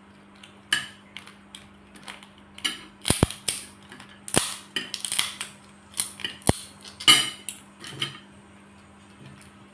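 Crab shells cracking and snapping as crab legs are broken apart by hand, with cutlery clinking against a plate: a run of irregular sharp clicks and cracks, over a faint steady hum.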